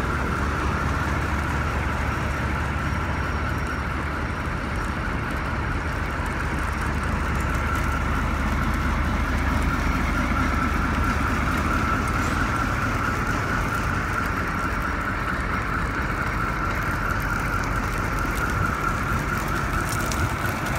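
A Ford C-series fire truck's diesel engine running steadily, with a steady high whine over it.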